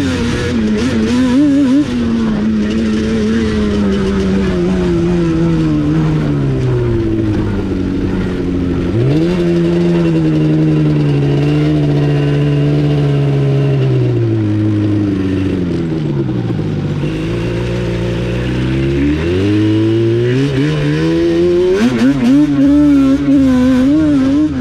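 ATV engine running under way, its note sinking over several seconds, jumping back up about a third of the way in, dipping again past the middle, then climbing and holding high near the end as the rider varies the throttle.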